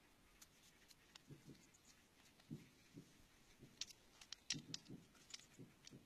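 Faint clicks and taps of a small metal pick and loose stones knocking against rock and each other, with soft dull knocks from digging in soil. A quick cluster of sharper clicks comes in the second half.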